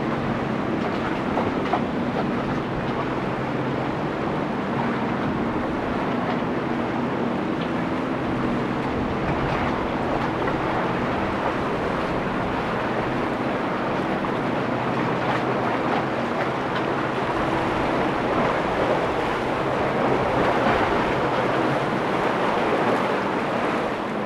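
Boat engines running steadily, with the wash of waves over them. The engine hum fades about halfway through, and the rush of water grows louder near the end.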